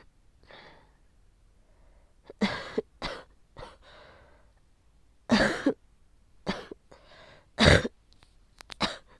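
A person with COVID-19 coughing violently and bringing up phlegm, in several fits of short, harsh coughs, the loudest around the middle and near the end.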